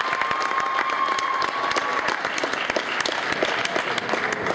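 Crowd applauding, a dense patter of many hands clapping, with one high note held for about the first two seconds.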